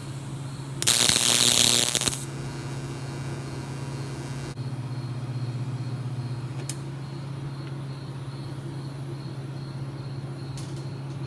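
Arc welding on steel tube chassis bars: a loud burst of arc noise about a second in, lasting about a second, then a quieter stretch of welding from about four and a half seconds that stops with a click near seven seconds, over a steady low hum.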